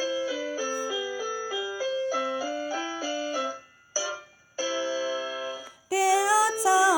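Piano playing a song introduction in short chords, breaking off briefly in the middle before a held chord. A voice starts singing about six seconds in.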